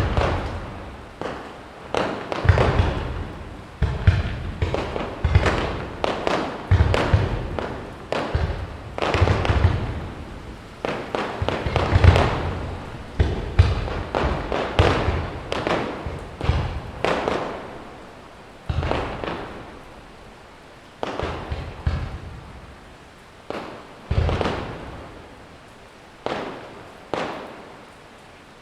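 Aerial firework shells bursting one after another in quick succession, each sharp bang trailing off in an echoing rumble.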